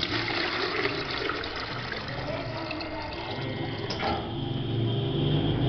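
A semi-automatic filling machine pours a steady stream of liquid from its nozzle into a plastic pail, making a dense splashing rush. The pour cuts off about four seconds in, and a low machine hum builds after it.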